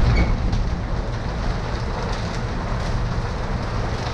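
Storm wind with driving rain and hail: a steady, dense rush with a deep rumble underneath and faint scattered ticks.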